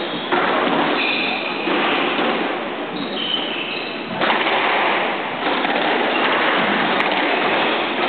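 Squash rally in a reverberant hall: thuds of the ball off racquets and walls, with brief high squeaks of shoes on the wooden court floor, over a steady noisy hiss.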